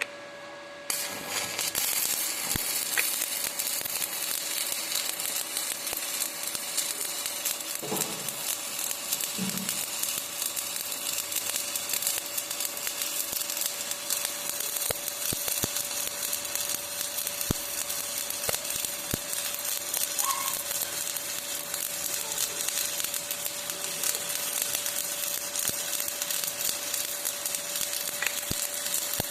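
Stick (shielded metal arc) welding with an E7018 electrode: the arc strikes about a second in, then crackles and sizzles steadily as a fill pass is laid down.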